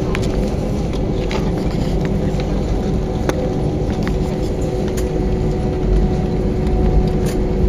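Airbus A320 cabin noise: a steady low rumble of engines and airflow with a constant hum, and a few faint clicks scattered through.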